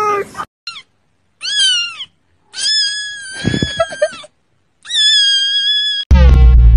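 Kitten meowing: a short meow, then three longer high-pitched meows with short silences between them, the middle one the longest. Loud music with a heavy bass cuts in abruptly near the end.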